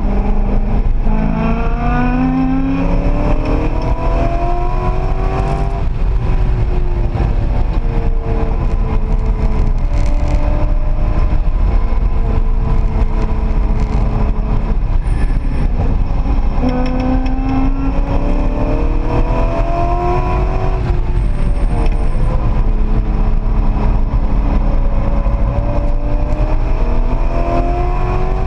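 Sports-car V8 heard from inside the cabin at full throttle on a track lap. The engine note climbs in three long rising pulls as the car accelerates, and levels off and drops back in between as the driver lifts and brakes for corners. Steady road and wind rumble runs underneath.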